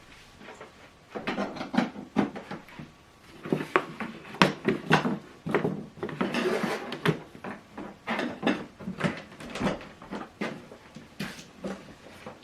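Irregular clicks, knocks and rustling of power cables and plugs being handled and pushed into sockets.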